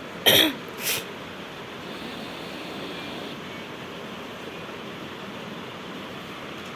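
Steady hiss of air noise, after two short loud sounds in the first second, the first falling in pitch.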